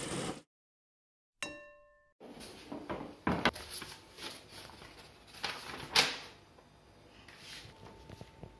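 A quick swoosh and a short ringing chime as editing sound effects, then handling noise as a paper assembly-instruction booklet is picked up and leafed through, with rustling and a few sharp clicks and knocks, the loudest about six seconds in.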